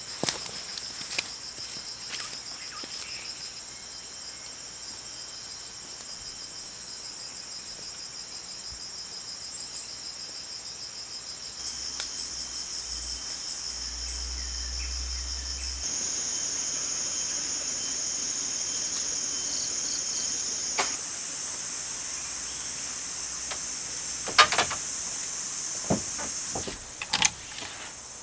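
Steady high-pitched buzzing chorus of tropical insects, with a few sharp knocks near the end.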